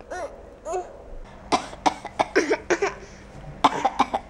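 A few short high-pitched baby vocal sounds, then a rapid run of sharp coughing bursts.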